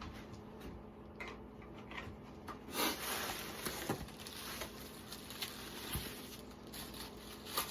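Packaging being handled and rustled as a shipping box is opened and unpacked, with a few light knocks and a louder rustle about three seconds in.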